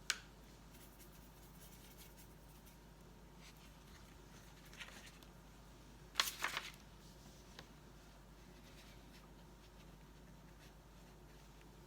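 Quiet room with light taps and scrapes of a watercolour brush on the palette as paint is mixed: one click at the start, a faint tick, and a short cluster of sharp clicks a little past the middle.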